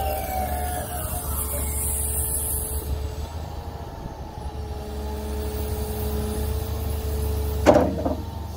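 CAT wheeled excavator's diesel engine running while the hydraulics work the stick and bucket, with a steady whine that drops out about three seconds in and comes back a second and a half later. A sharp clunk sounds near the end.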